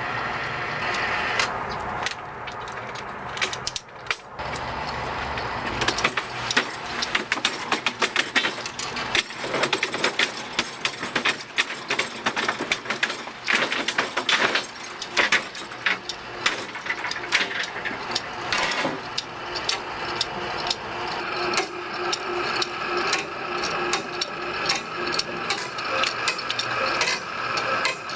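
Manual chain hoist being hauled to lift a stack of steel plate: a rapid run of clicking and chain rattling that gets denser after the first few seconds.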